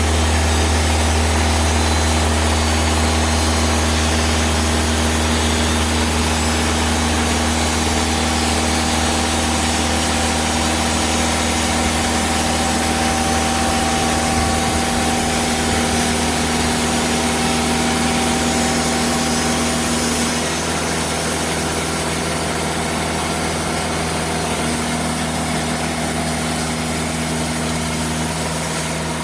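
Diesel engine of a TimberKing 2000 band sawmill running steadily, with a strong low hum and a hiss over it; the level drops a little about two-thirds of the way through.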